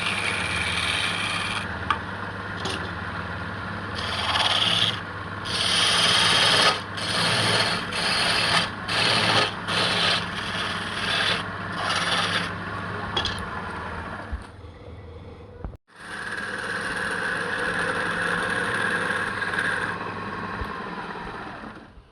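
Wood lathe running with a steady motor hum while a tool or abrasive is pressed against the spinning wood in repeated strokes, making a rasping, rubbing sound. There is a brief break about two-thirds of the way through, and the sound drops away near the end.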